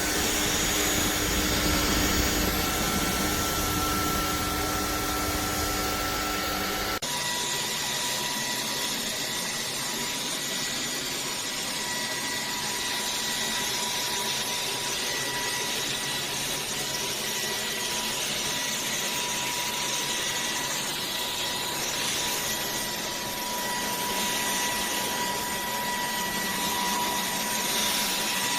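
Cordless stick vacuum cleaner running steadily with a motor whine. About seven seconds in the sound changes abruptly: the low rumble drops away and a steadier high whine carries on.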